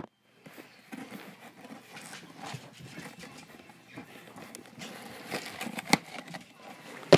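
Scissors scraping and snipping into a cardboard box, with faint rustling as the box is handled and a sharp click about six seconds in.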